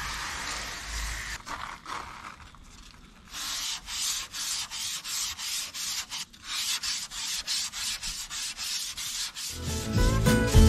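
Water hissing from a hose spray nozzle onto the panel for about the first second and a half, then #800 wet sandpaper rubbed by hand over the wet, painted engine lid in quick back-and-forth strokes, about three a second. Acoustic guitar music comes in near the end.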